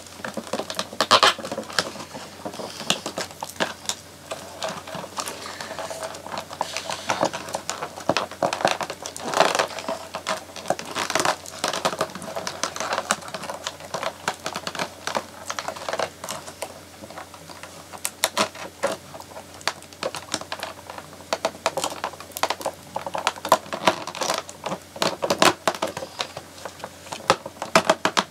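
Cardboard doll-box packaging being handled and pulled apart by hand: irregular crinkling and rustling with many small clicks and crackles.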